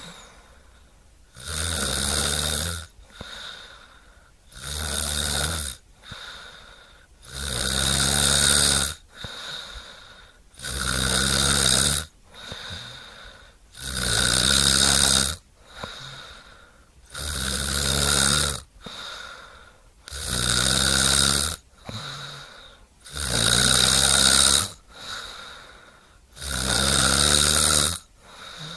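Snoring in a steady rhythm: a loud, low, rattling snore about every three seconds, each lasting about a second and a half, with a quieter breath in between.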